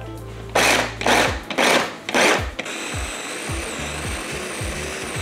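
Small food processor pulsed in four short bursts, then run steadily with a high whine, grinding a thick mix of walnuts, sunflower seeds and flax seeds.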